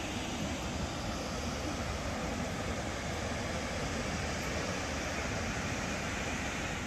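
Steady rushing of water falling through the gorge, an even roar with no breaks.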